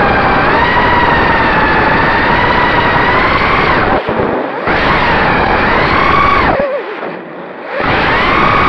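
Racing quadcopter's brushless motors and 5-inch tri-blade propellers, recorded onboard: a loud whine over rushing prop wash, its pitch rising and falling with throttle. It cuts out for a moment about four seconds in, dips again for about a second near seven seconds, then comes back up.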